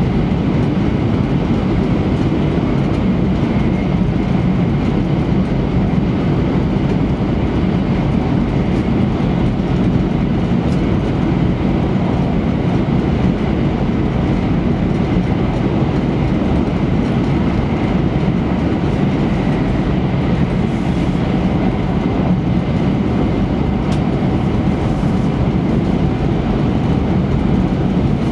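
Passenger cabin of an E3-series Shinkansen train running at high speed: a steady, low running noise of wheels on rail and air rushing past, heard through the carriage window.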